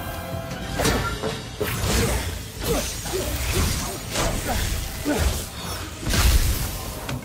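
Film fight sound effects: a run of sharp hits and shattering crashes, roughly one a second, with whooshes between them, over a music score.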